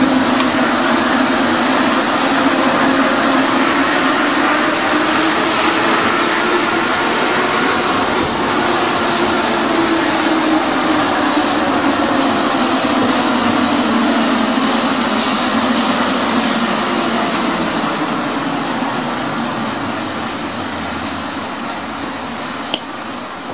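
Paris Metro MP 73 rubber-tyred train running through a tunnel, heard from the front of the car: a steady rolling noise with a low hum that wavers slightly in pitch. It grows quieter over the last few seconds, with one sharp click shortly before the end.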